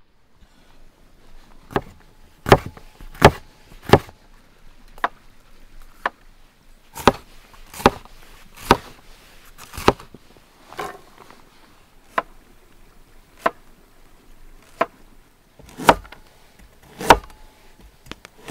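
Cleaver chopping vegetables on a wooden cutting board: single sharp knocks of the blade hitting the board, about one a second, some much louder than others, starting about a second and a half in.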